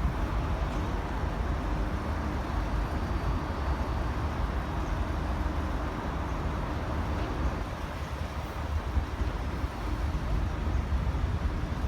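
Wind buffeting the microphone over a steady low vehicle rumble.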